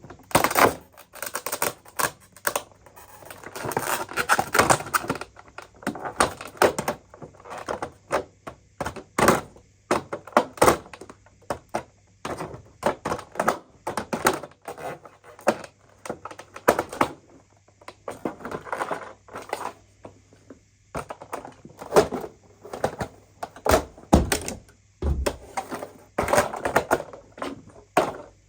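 Hard parts being handled: irregular clicking, tapping and clattering in quick clusters, with a few short pauses and some heavier thuds near the end.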